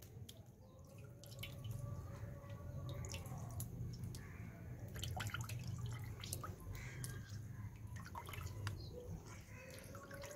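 Whey dripping and splashing into a pot of whey as a ball of fresh mozzarella curd is squeezed by hand: scattered faint drips over a low steady rumble.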